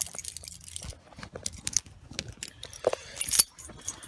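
A bunch of keys jangling and clicking as the ignition key is handled, with rustling and a louder jingle about three and a half seconds in.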